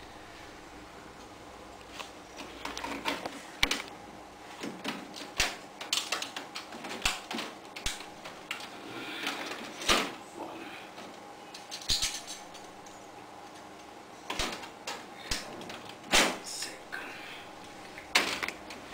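A thin PVC ceiling tile being handled and fitted into a suspended ceiling grid: irregular clicks, taps and light rattles of plastic against the grid rails.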